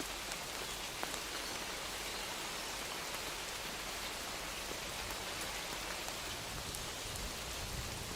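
Steady gentle rain falling on a surface, an even hiss with scattered individual drop ticks.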